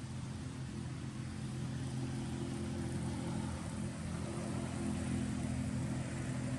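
Steady low hum of a running engine over a soft hiss, growing a little louder about two seconds in.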